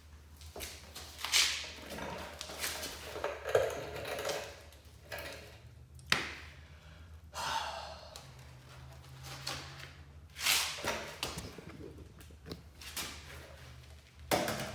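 Scattered knocks, clunks and rustles of handling, about half a dozen spread irregularly, over a steady low hum.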